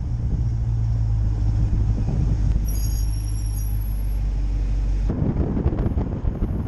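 2017 Dodge Challenger SRT running with a steady low engine drone. About five seconds in it changes suddenly to a rougher rumble of road and tyre noise.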